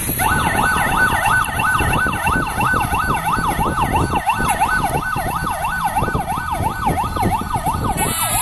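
Police patrol car siren sounding a fast yelp, its pitch sweeping up and down about three times a second, over a low traffic rumble.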